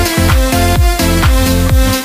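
Background electronic dance music with a steady kick-drum beat, about three beats a second, over sustained synth tones.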